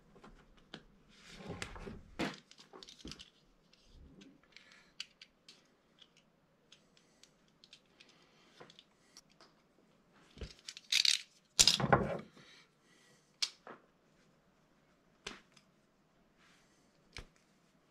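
Hand tools and electrical cable being handled during wiring work: scattered small clicks, taps and rustles, with two louder, noisier handling sounds about eleven and twelve seconds in.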